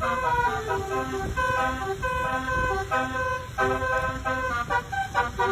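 Basuri telolet multi-tone horn playing a melody, note after note in quick steps, over a low rumble.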